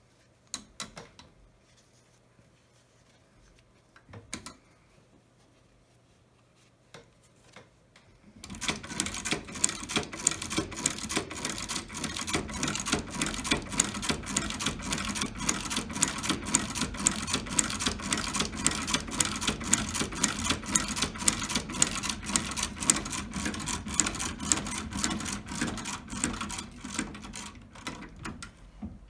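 Dürkopp Cl.17 industrial sewing machine stitching leather. A few light clicks come first; about eight seconds in, the machine starts running at a steady, rapid stitch with an even, regular beat, which eases a little near the end.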